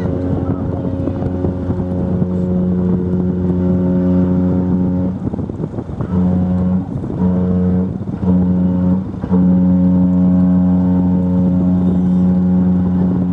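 Deep ship's whistle of the P&O cruise ship Aurora sounding: a long blast that ends about five seconds in, three short blasts, then another long blast near the end.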